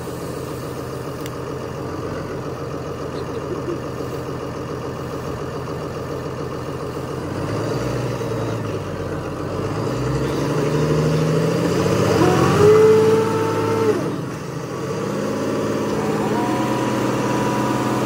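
New Holland tractor's diesel engine running, hitched to a baler. It picks up revs from about eight seconds in, is loudest around twelve to fourteen seconds, drops briefly, then settles at a steady higher speed.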